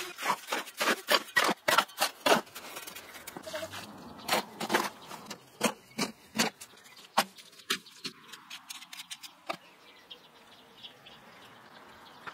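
Trowel working wet refractory cement mortar in a wheelbarrow: gritty scraping strokes, about three a second at first, then fewer and further apart.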